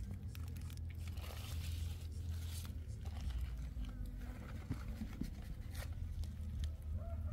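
Low wind rumble on the microphone, with scattered rustling and crinkling of large cabbage leaves brushed by a hand.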